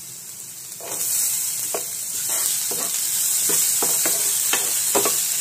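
Diced potato, onion and garlic sizzling as they fry in a pan, the sizzle growing louder about a second in. A metal spoon stirs them, scraping and knocking against the pan in a string of short strokes.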